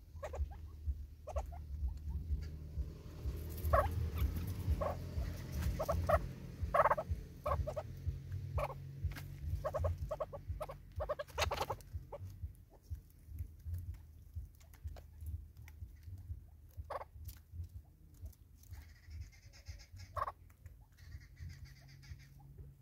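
Birds feeding at a seed bottle on a wooden stump: irregular pecking taps and clicks of bills on seed, wood and plastic, busiest in the first half. A steady low rumble runs underneath.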